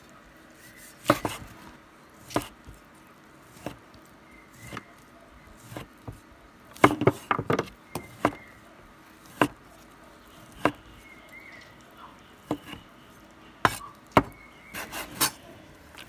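Chinese cleaver chopping boiled cured pork on a wooden chopping board: single knocks of the blade into the board at irregular intervals, with short quick runs of several strikes twice.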